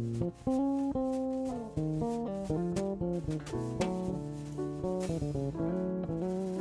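Jazz trio playing: grand piano and bass guitar with a quick, busy line of notes, and drums played with wire brushes on the snare and cymbals.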